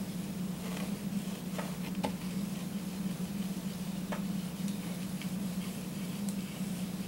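Palette knife working oil paint onto a canvas, giving a few faint, scattered ticks and scrapes over a steady low hum.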